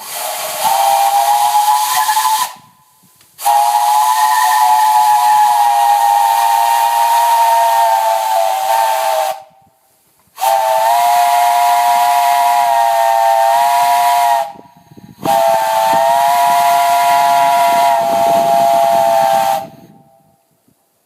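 A handmade 2⅞-inch three-chime Parsons steam whistle, blown on boiler steam: four blasts of a three-note chord over rushing steam hiss. The first, shorter blast warms the whistle up; the longer ones follow, each stopping sharply.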